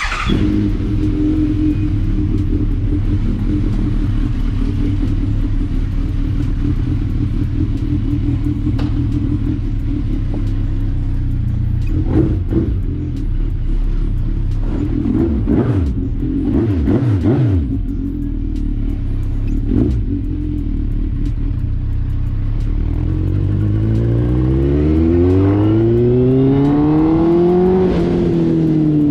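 Suzuki Bandit 1250's inline-four engine starting up after sitting unused for a week, then running steadily. About 24 s in, it revs up with a rising pitch as the bike pulls away, and eases off near the end.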